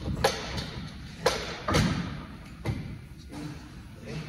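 A handful of separate knocks and thuds, about four in four seconds, each with a short ring. The heaviest, deepest thud comes a little before the middle.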